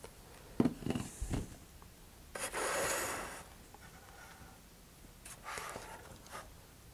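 A few light knocks as the glue bottle is set down and parts are handled on the cutting mat, then soft rubbing as a glued launch lug is pressed and slid into place on the rocket's body tube, with a fainter rub near the end.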